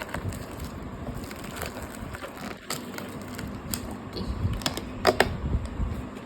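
Plastic food container and its sealing film being handled and opened: scattered crinkling and clicking of plastic, with a few louder clicks about five seconds in.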